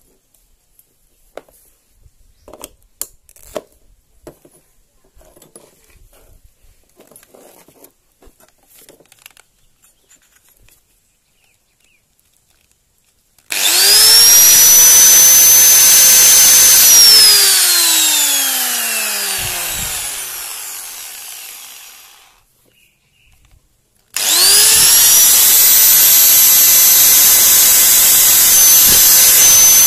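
Hand-held angle grinder with newly fitted carbon brushes, test-run: after a few faint clicks it is switched on about halfway in, whines up to speed and runs steadily for a few seconds, then is switched off and winds down with a falling whine. A couple of seconds later it is started again and runs steadily.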